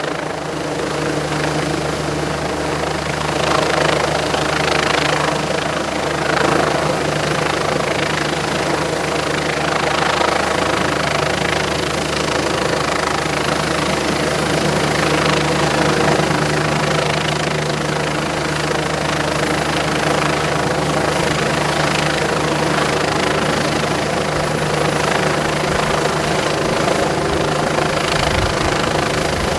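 Disaster-prevention helicopter running loud and steady close by, its engine and rotor noise continuous.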